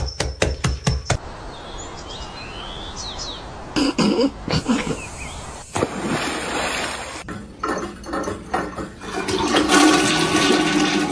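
Water rushing and gurgling, after a quick run of sharp clicks. Near the end a louder, steady sound with several held tones comes in over it.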